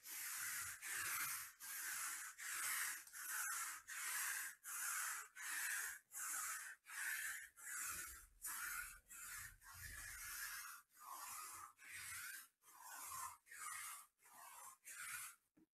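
Sticky lint roller rolled back and forth across the black cloth table surface, picking up lint. It makes a run of short, even rasping sweeps, about three every two seconds.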